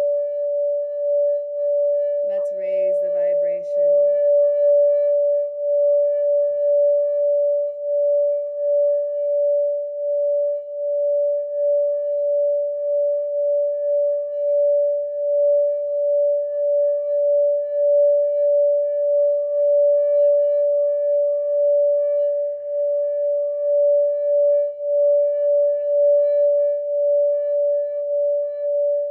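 Sacral chakra singing bowl sounding one steady, sustained tone with faint higher overtones and a regular pulsing wobble.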